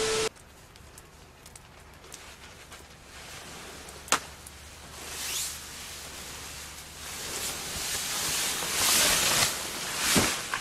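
A brief burst of TV-static noise with a steady beep, then a fabric car cover being dragged off a snow-covered car: rustling and sliding snow building up, ending in a dull thump near the end as the slab of snow drops.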